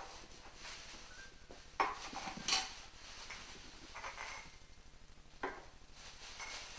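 Plastic shopping bag rustling while it is unpacked, with a few sharp knocks and clinks of items set down on a kitchen bench, the loudest about two seconds in.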